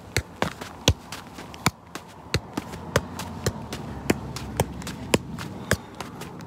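A size 4 football being juggled: irregular thuds as the ball is struck by foot and knee, about two touches a second.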